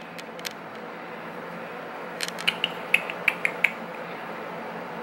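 Phone keyboard clicking as a text message is typed: a few taps near the start, then a quick run of about eight sharp clicks in a second and a half, over a steady low hum.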